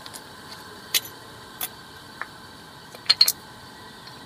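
A few small clicks and light knocks from new brake pads and a plastic bag of metal spring clips being handled, the loudest a quick double clack about three seconds in.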